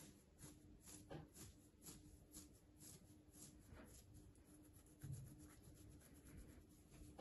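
Faint rubbing of a hand stroking a Jack Russell puppy's belly fur, a soft scratchy sound repeated a few times a second, with one dull thump about five seconds in.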